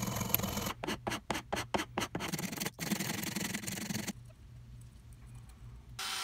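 Coping saw cutting through the end of a painted wooden croquet stake, with a run of quick back-and-forth strokes, then a file scraping across the cut end. A steady drilling sound starts near the end.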